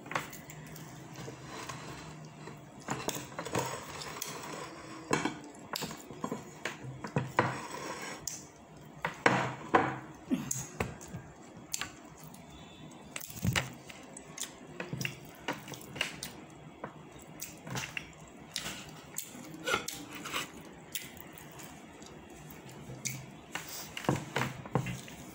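A person eating with their hands: chewing, with irregular light clicks and knocks of fingers and food against plates.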